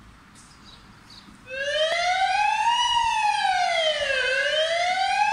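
Fire engine siren switched on about one and a half seconds in, sounding a slow wail that rises and falls in pitch about every three seconds; before it, only quiet street sound.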